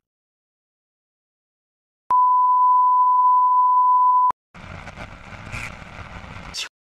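Television colour-bars test tone: a single steady pure beep starting about two seconds in and lasting about two seconds, cut off sharply, then about two seconds of TV static hiss that stops suddenly.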